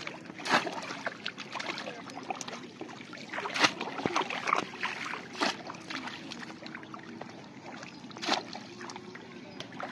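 Shallow water sloshing and splashing as a bamboo polo fish trap is plunged into flooded, muddy ground and a boy wades and gropes with his hands inside it. Several sharper splashes stand out, the loudest a little past the middle.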